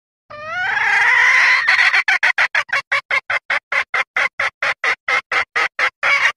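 Female junglefowl calling: one drawn-out, rising squawk, then a fast even run of short clucks, about five a second. It is a hen's call used as a lure to draw in males, billed as a hen asking to mate.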